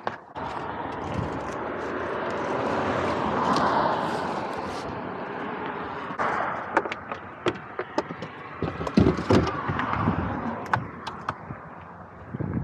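Rustling, then a run of clunks and knocks as gear is shoved and loaded into the back of a car.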